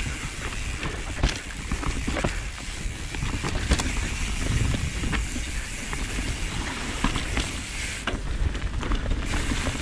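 Mountain bike riding down a dirt trail: a steady rush of wind rumble on the microphone, with tyres on the dirt and the bike rattling, full of frequent short knocks and clicks.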